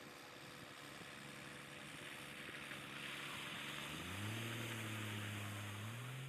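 Truck hauling a boat on its flatbed drives past close by, engine running with the hiss of tyres on gravel; the engine pitch rises about four seconds in as it pulls away, then rises again near the end.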